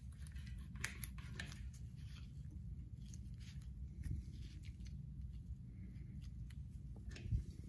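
Light clicks and rubbing as nitrile-gloved hands slide a lock-on rubber grip along a mountain bike handlebar beside the shifter, ending with a sharper knock a little before the end.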